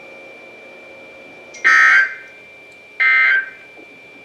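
Emergency Alert System end-of-message data bursts from a NOAA weather radio: short, loud, buzzy digital bursts, the first about one and a half seconds in, a second about a second and a half later, and a third starting just at the end. They mark the end of the flash flood warning broadcast. Low radio hiss lies between the bursts.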